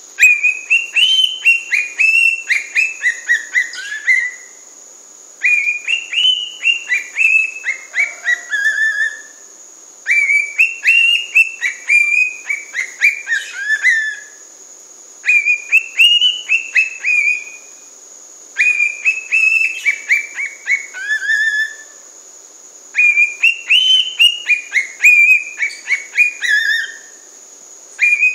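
A cockatiel whistling the same short tune about six times over, with a brief pause between each. Each phrase is a quick run of chirpy whistled notes that step down in pitch toward the end.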